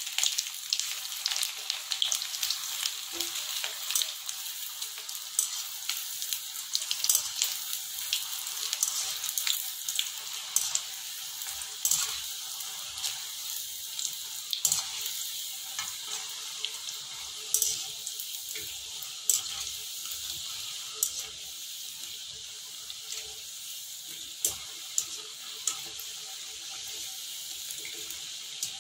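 Batter-coated potato fingers deep-frying in hot oil in a kadhai, their second fry to crisp them: a steady high sizzle with scattered crackles and a few sharper pops.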